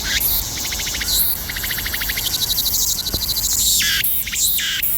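Cicadas calling loudly in chorus: shrill, high buzzing made of rapid pulses in runs that swell and break off, several insects overlapping.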